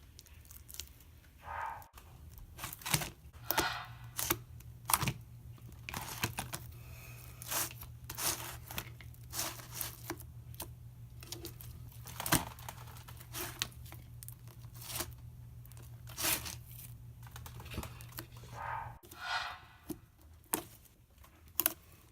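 Homemade slime being squished and stretched by hand: irregular crackling, popping and squelching. A faint low hum runs under most of it and stops near the end.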